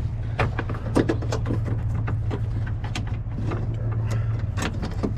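Scattered short plastic clicks and rattles as the door's wiring connectors and clips are handled, over a steady low hum.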